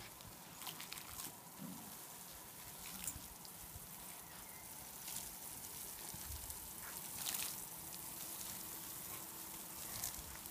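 Water spraying from a garden hose onto a grass lawn: a steady hiss with a few brief louder spurts.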